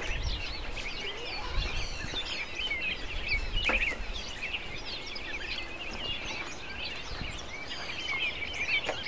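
Many small birds chirping and twittering at once, a dense stream of short, quick high calls, over a low rumble.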